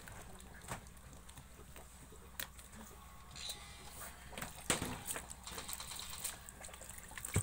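Hands squeezing and kneading fresh butter in buttermilk in a metal bowl, gathering it before it is cooked down into ghee. The sound is faint wet squelching with scattered short clicks and knocks against the bowl, over a low steady hum.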